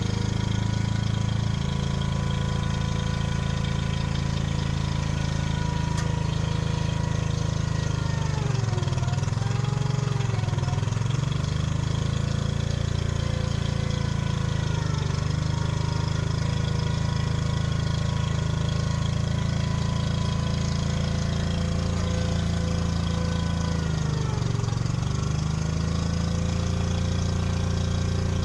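Mini excavator's diesel engine running steadily. Its pitch sags and recovers about three times, as the engine pulls down under hydraulic load.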